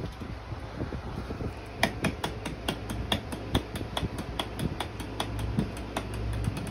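A toddler's hands tapping and slapping the round wooden rungs of a wooden climbing triangle: a run of quick, irregular knocks, several a second, starting about two seconds in.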